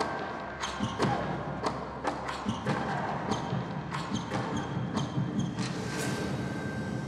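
Show music made of sharp, irregular percussive hits, some ringing briefly, over a steady low background.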